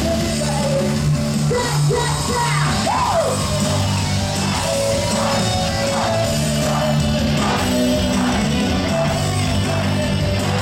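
Live J-pop song played loud over a concert PA, with shouts over the music, including a rising shout about three seconds in.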